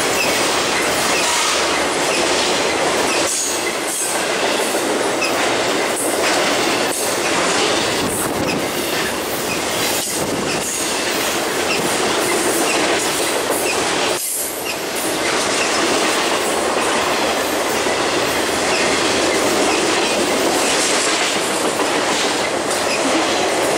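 Freight cars of a BNSF intermodal stack train rolling past at close range: a loud, steady wheel-on-rail rumble and rattle, with irregular clicks as the wheels pass over rail joints.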